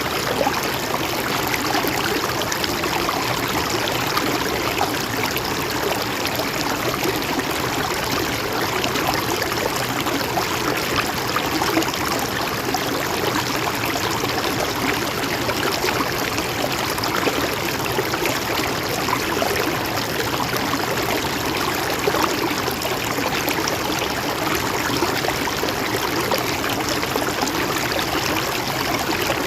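Mountain stream flowing steadily over rocks, a constant rush of water with fine trickling and gurgling.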